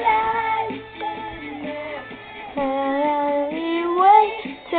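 A girl singing a pop song melody, holding long notes that slide between pitches, with a softer stretch about a second in.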